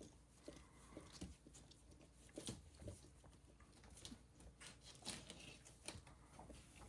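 Near silence with faint, scattered rustles and small clicks from 16-day-old puppies stirring in a whelping box.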